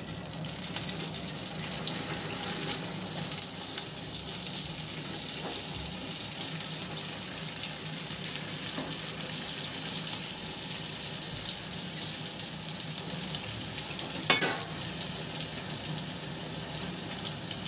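Half-steamed veg momos deep-frying in hot refined oil, a steady sizzle. One brief knock near the end.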